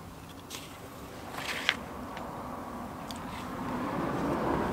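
A paperback picture book's page being handled and turned: a few short paper rustles and flaps, the sharpest about one and a half seconds in, over low background noise that grows toward the end.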